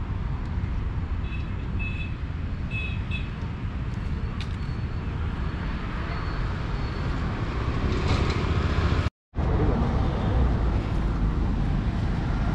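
Steady low rumble of road traffic noise, broken off by a momentary dropout about nine seconds in.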